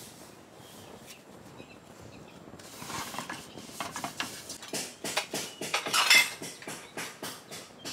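Kitchen utensils and dishes being handled: irregular clinks and knocks that start about three seconds in and are busiest around six seconds.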